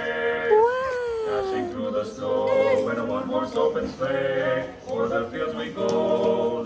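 Animatronic singing-penguin display playing its song: male voices singing together in harmony, with one swooping note that rises and then slides down near the start.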